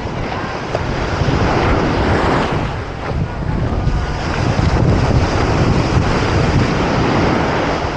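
Ocean surf washing up on a sandy beach, with wind buffeting the microphone.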